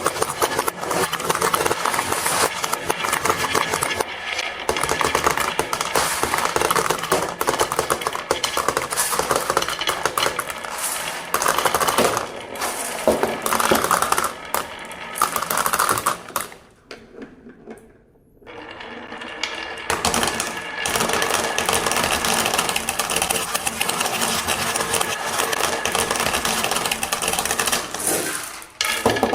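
Lots of glass marbles clattering down wooden marble-run tracks, a dense unbroken stream of clicks and rattles. It thins out and goes briefly quiet a little past halfway, then picks up again.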